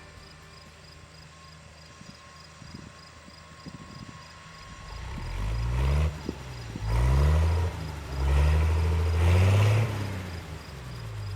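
Faint background for the first few seconds; then, about five seconds in, a vehicle engine becomes loud, its pitch rising several times in quick succession as it accelerates, before easing off near the end.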